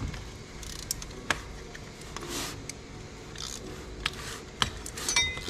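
Scattered clicks and short scrapes of hands and tools working the plastic clips and fittings on a car engine.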